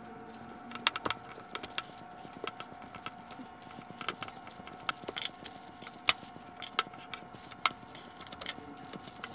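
Irregular sharp clicks and snaps from handling the legs of a Unitree Go2 robot dog while its leg protectors are taken off, over a faint steady hum.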